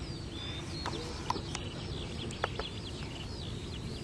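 Small birds chirping, with many short rising and falling notes throughout, over a steady low rumble. A few sharp clicks come in the first two and a half seconds.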